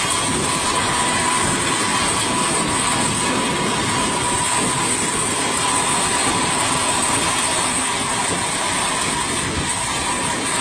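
Steady loud running noise of aircraft machinery, an even rumbling hiss with a constant high whine over it, heard inside a cargo aircraft's hold.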